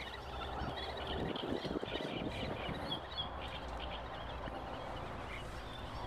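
Strong wind blowing over the microphone, a steady low rush, with faint scattered high chirps over it.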